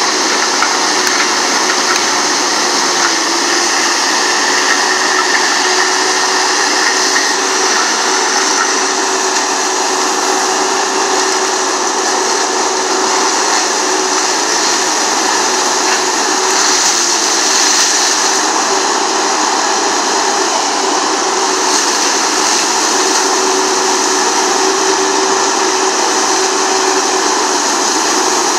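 Galotrax 300 tracked forestry mulcher running steadily as it shreds branches and brush. Its machinery gives off a continuous loud noise with a steady whine through it.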